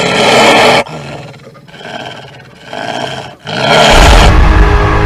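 Werewolf roar sound effect: a loud roar that cuts off just under a second in, quieter rough growling, then a second loud roar about three and a half seconds in, with a deep low rumble coming in beneath it.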